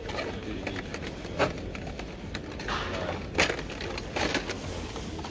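Hot Wheels blister-card packages being handled and pulled about on a metal display peg: plastic and cardboard rustling with a few sharp clacks.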